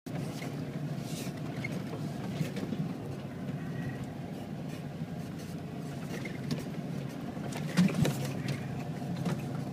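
Ford Bronco's engine running steadily under load as it climbs a rough dirt trail, heard from inside the cab. Scattered clicks and rattles from the truck jolting over the ruts, with a louder knock a little before eight seconds.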